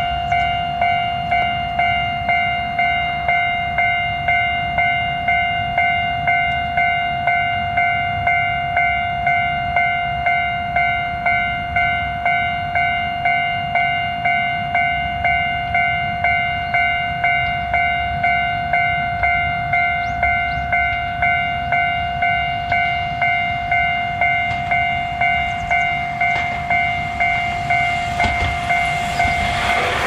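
Japanese level-crossing warning bell ringing, the same ding struck over and over at a little under two a second. In the last couple of seconds an electric commuter train reaches the crossing, and its running noise rises under the bell.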